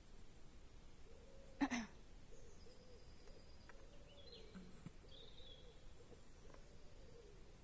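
A single sharp tap about one and a half seconds in, over faint background bird calls: a low wavering cooing and a few thin high chirps.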